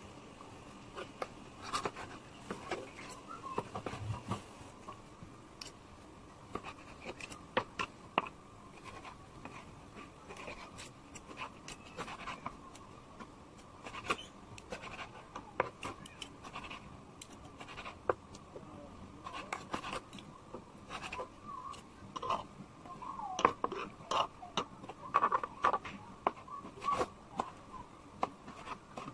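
Kitchen knife slicing and chopping boiled pork face meat on a plastic cutting board: irregular clicks and taps of the blade against the board, louder and quicker in the second half as the meat is cut into small pieces.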